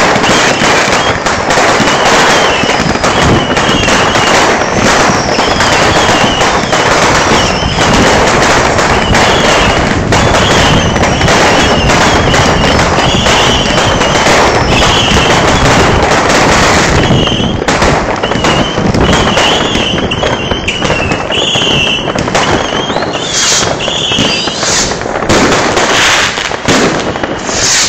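Loud New Year's Eve fireworks: many firecrackers and rockets going off at once in a dense, continuous crackling barrage, with shrill whistles from rockets over it. Separate sharp bangs stand out more in the second half.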